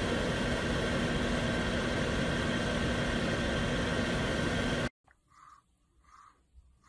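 A small electric motor runs with a steady hum and a rushing hiss of air, then cuts off abruptly about five seconds in. After it come faint, evenly spaced soft swishes, about one every two-thirds of a second.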